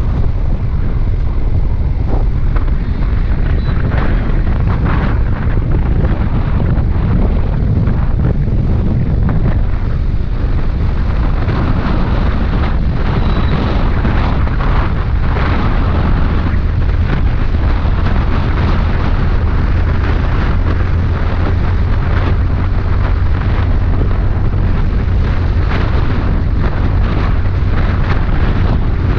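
Wind buffeting the microphone of a motorcycle moving at highway speed, a loud, steady rumble with the bike's running noise mixed in.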